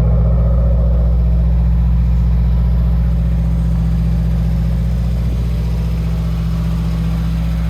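2017 Subaru WRX's 2.0-litre turbocharged flat-four engine idling steadily through an aftermarket exhaust. The engine, rebuilt after seizing, is running smooth and sounds healthy.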